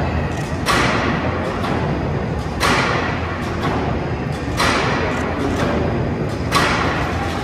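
Four heavy thuds about two seconds apart, each with a ringing tail, over a steady low rumble.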